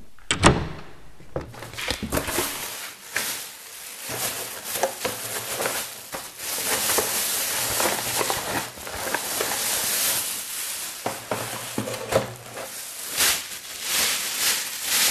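A thin plastic bag crinkling and rustling as hands grab, bunch and pull at it, after a sharp knock about half a second in.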